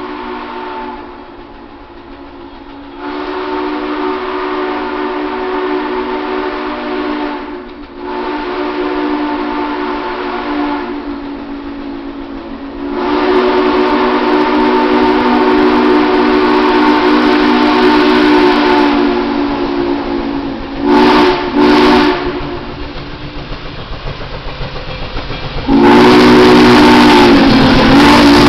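Nickel Plate Road 765, a 2-8-4 Berkshire steam locomotive, blowing its steam whistle as it approaches. The whistle sounds several notes at once in a series of long blasts, then two short ones about three-quarters of the way through. Near the end the locomotive passes close by, and the whistle sounds again over a loud rush of exhaust and running gear.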